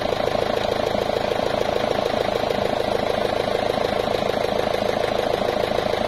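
Forklift engine running steadily with a fast, even pulse while the hydraulics raise the mast under remote control.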